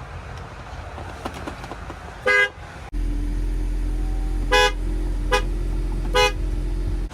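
Ford Mustang car horn giving four short honks: one about two seconds in, then three evenly spaced beeps near the end. A steady low hum runs under the last three.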